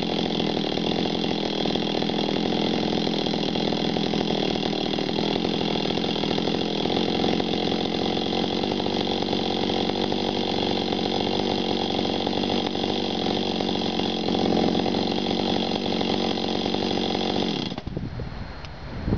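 Jonsereds 520SP two-stroke chainsaw idling steadily on the ground with nobody holding the throttle, its pitch unchanging. Near the end the engine is switched off and cuts out abruptly.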